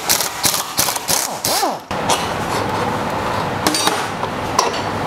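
Pneumatic impact wrench working the swing-arm bolts of a Royal Enfield motorcycle. A run of sharp metallic knocks lasts about two seconds, then gives way to a steady, continuous run.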